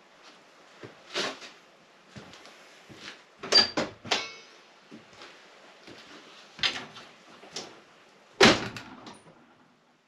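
A series of separate knocks and clatters of hard objects being handled, with the loudest strikes about three and a half and eight and a half seconds in.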